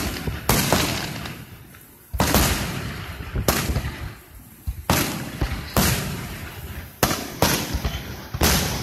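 Aerial fireworks shells bursting one after another at a public display: about eight sharp booms at uneven intervals, each dying away in a rolling echo.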